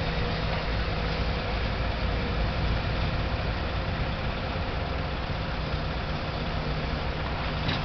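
An engine running steadily at idle, a constant low hum under a broad even noise.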